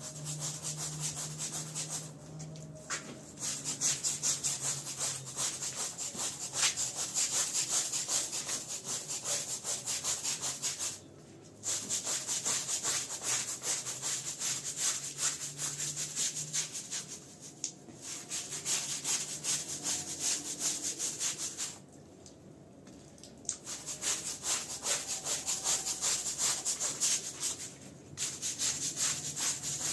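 A stiff brush scrubbing a wet, dirty rug in quick, rough strokes. The scrubbing stops briefly about five times.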